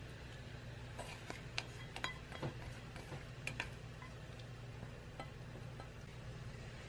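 Faint, irregular clinks and taps against a glass mixing bowl, about nine over the first five seconds, as hot cream is poured onto white chocolate, over a steady low hum.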